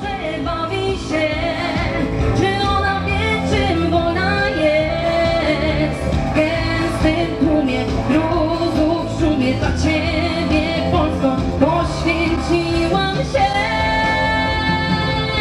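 A woman singing into a microphone over a band accompaniment with a steady beat.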